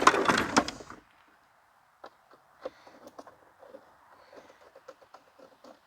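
Hand-tool work on the plastic housing of a vacuum cleaner being taken apart: a loud burst of handling and scraping in the first second, then faint, scattered small clicks and ticks of a screwdriver working out a screw and plastic parts being moved.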